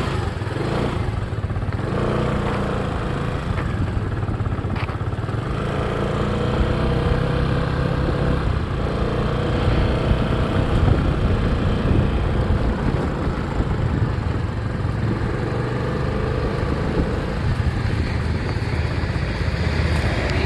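Motorbike engine running under way, loud and steady, its pitch rising a little in the first few seconds, with wind and road noise.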